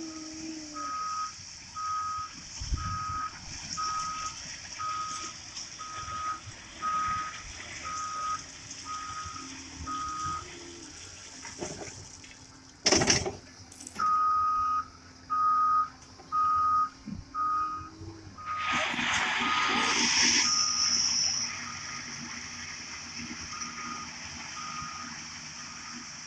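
Excavator's travel alarm beeping about once a second over its running diesel engine as the machine moves on the tracks, with a sharp bang about halfway and a brief loud rush of hissing noise a few seconds after it.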